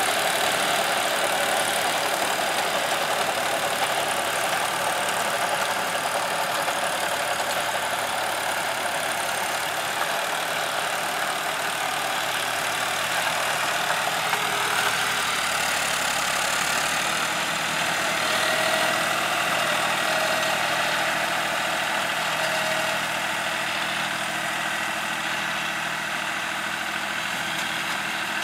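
John Deere 5310 tractor's three-cylinder diesel engine running steadily under load while its PTO-driven Swan rotavator tills the soil.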